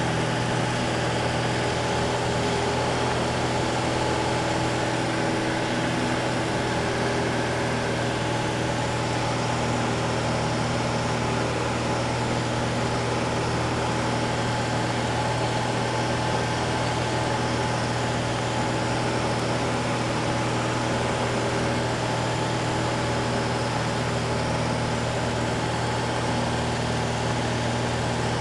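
Light aircraft's piston engine and propeller droning steadily in level flight, heard inside the cabin as an even low hum with no change in pitch.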